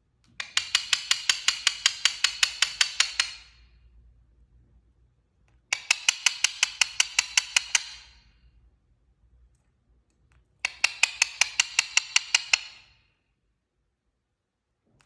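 A parrot making a rapid clicking trill, about seven clicks a second, in three bursts of roughly two and a half seconds each, separated by short pauses.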